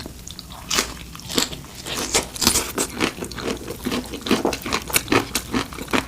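Close-up crunching of fried chicken being bitten and chewed: crisp batter crackling in a quick, irregular run of sharp crunches.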